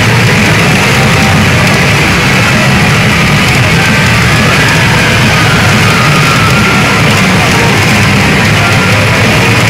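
Loud, steady music from a Mizuho pachinko machine's speakers, playing during its X Zone mode.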